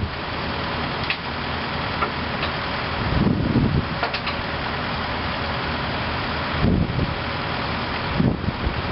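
Heavy diesel machinery engine running steadily. A few brief low rumbles come and go, and there are faint light clicks.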